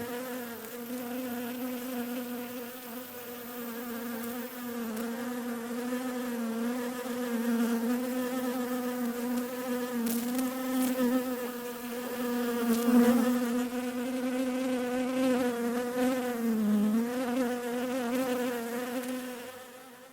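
Bees buzzing: one steady buzzing hum whose pitch wavers a little, dips briefly a few seconds before the end, and fades out at the very end.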